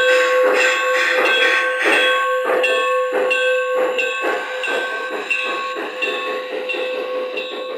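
LGB G-scale model train running past with hopper cars, a steady rhythmic clicking of about three beats a second over a held ringing tone, easing off toward the end as the cars go by.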